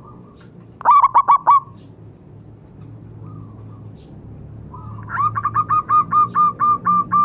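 Zebra dove (perkutut) calling: a quick burst of about five cooing notes about a second in, then, from about five seconds in, a long run of rapid, evenly spaced staccato coos.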